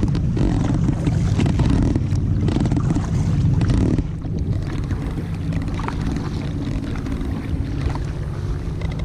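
Wind rumbling on the microphone over water sounds while a kayak is paddled; the rumble eases a little about four seconds in.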